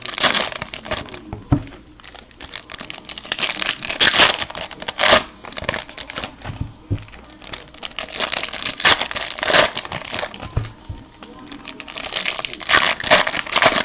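Bowman Chrome trading-card pack wrappers crinkling and tearing as packs are ripped open and handled one after another, in repeated bursts of crackle.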